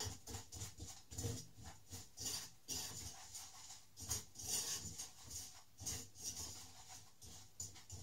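Wooden spoon stirring and scraping caramelizing sugar around a stainless steel saucepan, a rasping stroke about two to three times a second.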